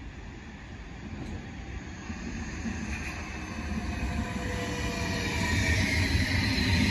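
SBB double-deck train approaching and running alongside the platform. Its rumble and wheel noise grow steadily louder, with a faint whine above them.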